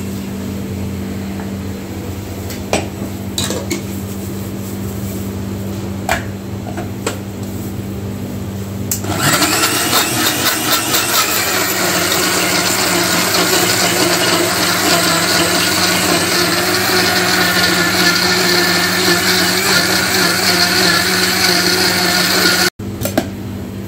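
A steady low hum with a few light clicks, then about nine seconds in a countertop blender starts and runs steadily at full speed, blending a cold coffee shake. It cuts off abruptly near the end.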